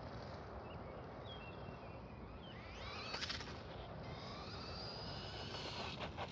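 Faint high whine of the WLToys L202 Pro RC buggy's brushless motor, rising in pitch as it accelerates about halfway in, then holding high as it runs.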